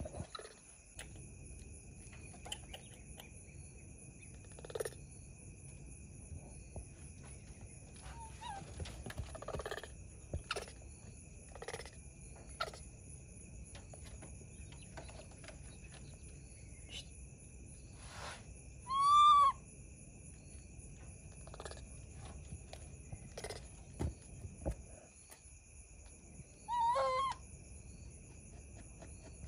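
Baby macaque giving two short, high whistling coo calls several seconds apart, each an arched tone that rises and falls. Light knocks and taps from it moving about the wooden cage come in between.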